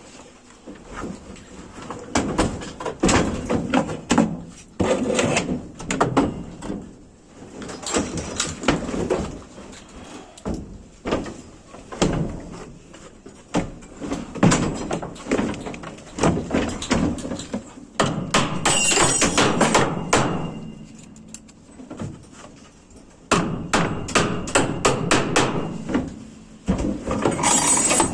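Hammer blows on wood in irregular runs of knocks, some runs fast and dense, with short pauses between them.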